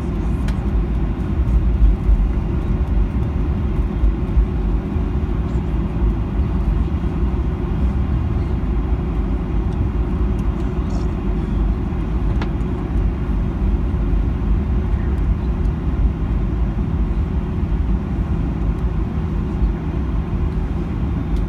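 Cabin noise inside a Boeing 737-900ER taxiing: a steady low rumble from its CFM56-7B engines at idle and from the wheels rolling on the taxiway.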